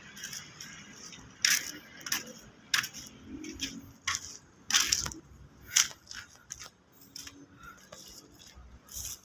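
Footsteps crunching and scuffing on gritty concrete, about one step every half second to a second.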